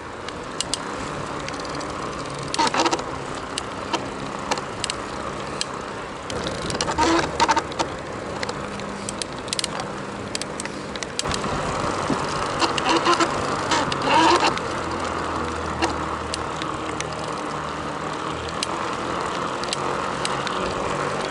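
Bafang BBSHD mid-drive e-bike motor running under riding, with a steady hum and a higher-pitched whine and scattered clicks, growing louder about halfway through. It is the strange noise the owner cannot identify and that appears when the pedalling cadence is slower than the motor wants.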